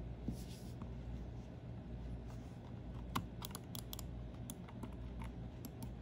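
Logitech wireless mouse clicking under the fingers: a brief rustle of hands near the start, then a quick, irregular run of sharp clicks from about three seconds in.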